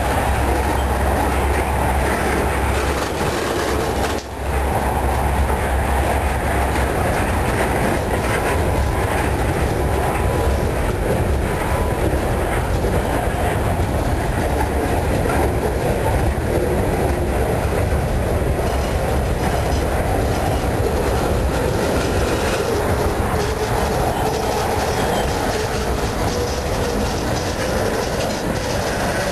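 Freight cars of a Union Pacific manifest train, centerbeam flatcars loaded with lumber, rolling past close by: a steady, loud noise of steel wheels running on the rails. The sound dips briefly about four seconds in.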